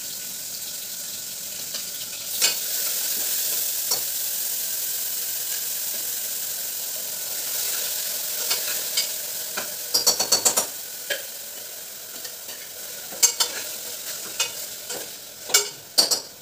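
Onion paste frying in hot oil with cumin and kasuri methi in an open pressure cooker on a gas stove: a steady sizzle that swells about two seconds in as the paste goes into the oil. A spoon scrapes and knocks against the cooker as it is stirred, with a quick run of scraping clicks about ten seconds in.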